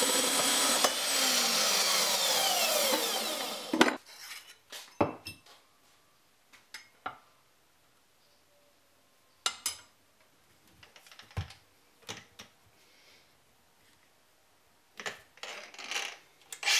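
Portable band saw running through a steel flat bar, its pitch sliding down over the first few seconds, then stopping abruptly about four seconds in. After that come scattered metallic clinks and knocks of steel strips being handled and set down.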